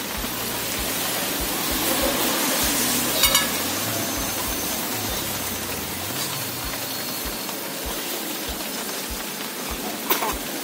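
Chicken kebab skewers sizzling on a grate over a charcoal fire: a steady hiss. A sharp metal clink comes about three seconds in and again near the end.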